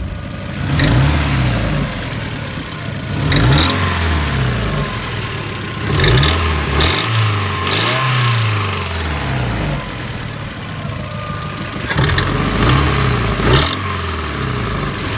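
Mazda Miata's four-cylinder engine revved up and let fall back several times, its pitch rising and dropping with each rev. Short harsh noises cut in at the start of some of the revs. The owner finds these noises strange.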